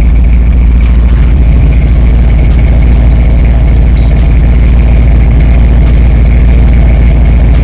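Car engine running steadily, loud and deep.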